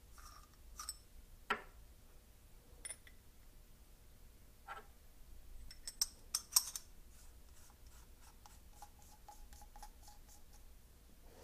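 Light metal clicks and scraping as the threaded steel sections of a Spike's Tactical Barking Spider 2 muzzle brake are screwed together by hand. A few sharp ticks come scattered through, with the loudest pair about six seconds in.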